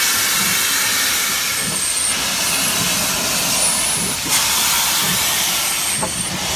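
SNCF 140 C steam locomotive blowing steam from its cylinder drain cocks: a loud, steady hiss, dipping briefly about four seconds in.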